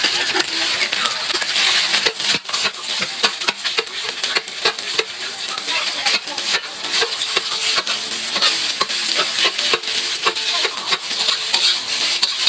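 Food sizzling in a hot pan while being stir-fried, with a spatula scraping and knocking against the pan many times at an uneven pace.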